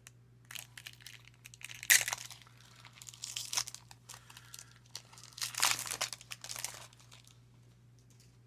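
Baseball card pack wrapper crinkling as it is torn open and handled, in several bursts, the sharpest and loudest about two seconds in.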